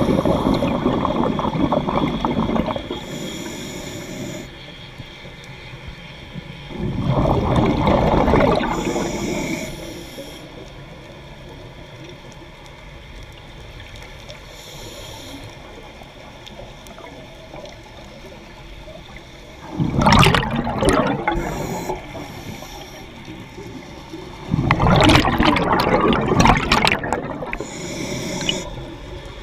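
Scuba diver breathing through a regulator underwater: four rushes of exhaled bubbles, each two to three seconds long, with faint hisses of inhaling between them.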